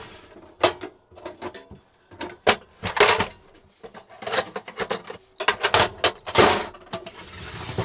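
Metal cantilever toolbox being opened and rummaged through: irregular clanks and rattles of hand tools, with several louder clatters.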